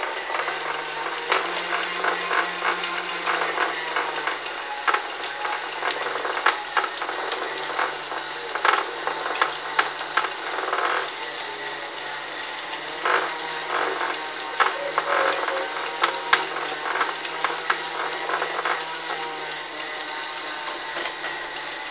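Indoor bicycle trainer running under pedalling, a steady low hum with irregular clicks and rattles scattered through it: the strange noise coming from the trainer.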